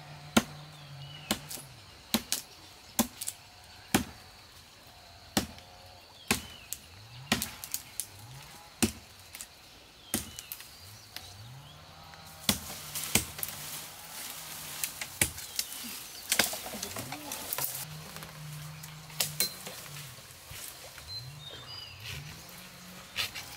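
Repeated sharp chops of a blade striking wood, coming irregularly about once a second and busier partway through. Under them, a low tone rises and then holds, again every couple of seconds.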